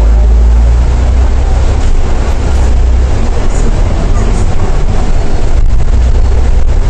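Cummins ISL8.9 six-cylinder diesel of an Alexander Dennis Trident E500 double-decker bus running as the bus drives along, heard from inside the bus as a loud, steady, deep rumble with road noise.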